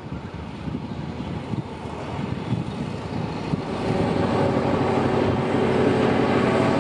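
Diesel-electric locomotive engine running and getting steadily louder. The first seconds are an uneven rumble and clatter; a steady engine drone comes in about four seconds in.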